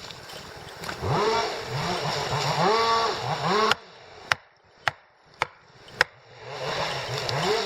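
Chainsaw engine revving in pulses, its pitch rising and falling, then cutting off suddenly. Four sharp knocks follow about half a second apart, and the engine sound comes back near the end.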